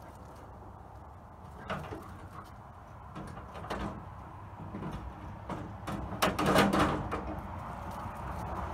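Door glass and its channel being worked into the tracks inside a 1971 Ford F250 door: scattered scrapes and knocks of glass against metal, with a louder cluster of rattling and scraping about six to seven seconds in, as the glass is lined up with the back track and its roller goes into the bottom track.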